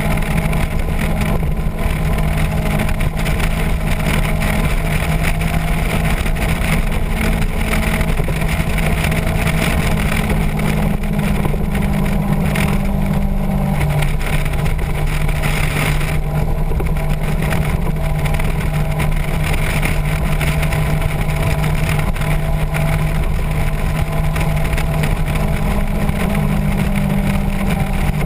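Motorcycle engine running steadily at cruising speed, with wind rushing over the microphone. The engine note shifts slightly about halfway through.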